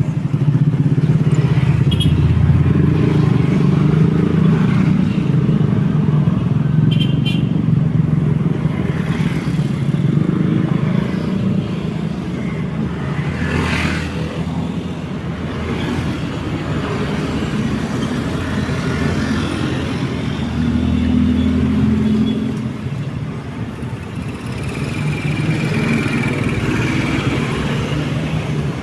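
Steady road traffic: the continuous engine rumble and tyre noise of passing motor vehicles, swelling and easing as they go by. It is loudest in the first dozen seconds and dips briefly about three-quarters through. A brief sharp sound comes about halfway through.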